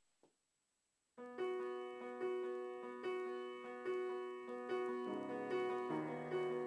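Slow piano music begins about a second in: a note is struck roughly every second over sustained, fading chords. Lower notes join about five seconds in.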